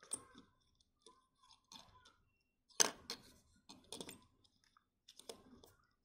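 Small plastic clicks and taps as a 1:18-scale action figure's joints are bent and the figure is set into a toy office chair on a tabletop; the sharpest click comes about three seconds in.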